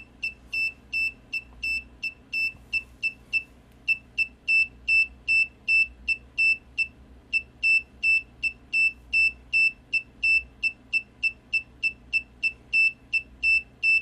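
Buzzer driven by an Arduino Nano beeping out the Morse code for "THANKS FOR WATCHING": a steady run of short and longer high-pitched beeps, all at one pitch. Two brief pauses, about three and a half and seven seconds in, fall between the words.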